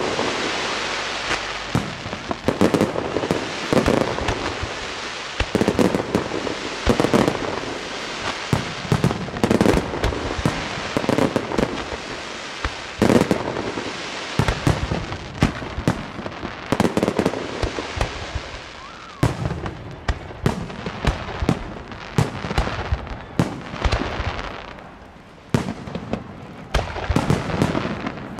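Aerial firework shells from a fireworks display bursting in quick succession, a loud bang every second or so over a constant hiss and crackle. There is a short lull near the end, then a fresh run of bangs.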